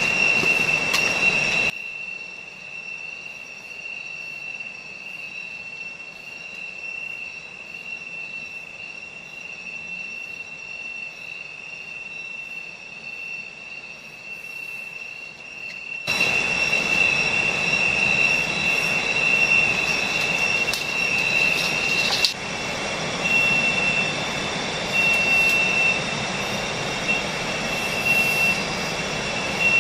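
Night insects in tropical forest shrilling in a steady, high-pitched chorus. It is fainter for a long stretch in the middle, and near the end it goes on and off about every second and a half. A single sharp click sounds about two-thirds of the way through.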